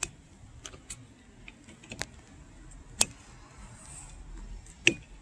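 Scattered sharp plastic clicks and taps, about half a dozen, as a rear wiper blade is handled and fitted onto its wiper arm.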